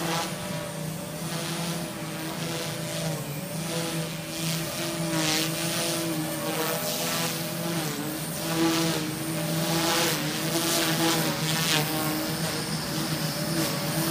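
OXY 2 Pro 215 electric RC helicopter in flight: the Lynx EOX brushless motor and rotor head make a steady whining hum whose pitch wavers up and down as the blades load and unload. Several brief swishes break through the hum.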